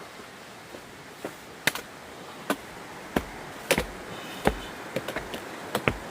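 A hiker's footsteps on a rocky trail: about ten sharp, irregular taps and knocks, some with a dull low thud, over a steady background hiss.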